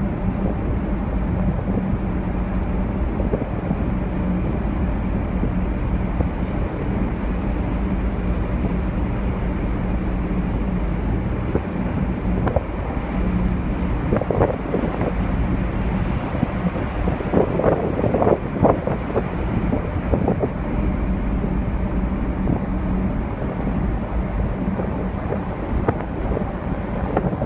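Wind buffeting the microphone over the steady low drone of a large car ferry's engines, heard from the open deck.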